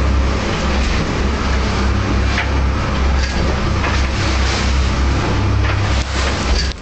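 A boat's engine running steadily under load, a deep drone heard from inside the wheelhouse, under a constant hiss of rushing water and wind as the hull pushes through rough swell.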